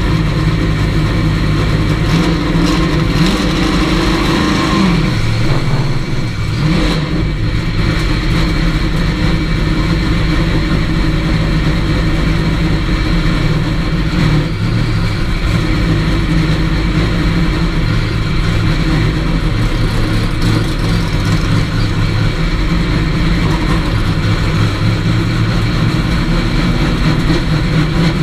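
Chevrolet race car's engine heard from inside the cockpit, running steadily at low revs as the car rolls slowly, with a brief rise and fall in revs about four to six seconds in.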